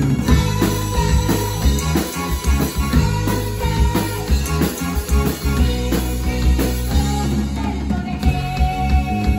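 Live band music: a girl sings lead over a Roland keyboard and a drum kit, holding long notes over a steady drum beat.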